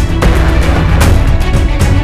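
Background music with drum hits over strong bass.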